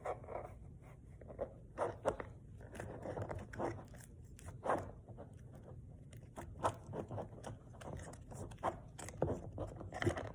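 Slime being packed back into its plastic container: irregular soft crackles, squishes and small clicks.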